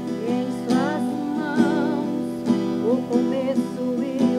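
A woman singing a gospel song with vibrato, accompanied by a strummed acoustic guitar.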